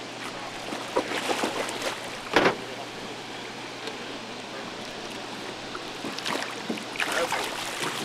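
A hooked striped bass splashing at the water's surface beside a boat, over a steady rush of water. There are several short splashes about a second in, a louder one about two and a half seconds in, and more splashing near the end.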